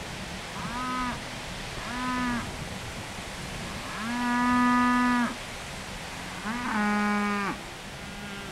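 Cattle mooing: four calls, two short ones followed by two long drawn-out moos, the first long one the loudest, over a steady background hiss.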